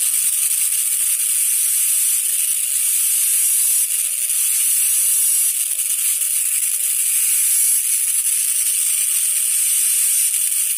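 Dental drill handpiece running with a steady high-pitched whine and hiss, its bur cutting depth orientation grooves into the palatal cusp of a typodont premolar.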